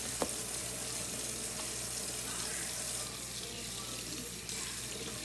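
Kitchen faucet running into the sink while raw cube steak is rinsed under it, with a sharp click just after the start. The water gets a little softer about three seconds in.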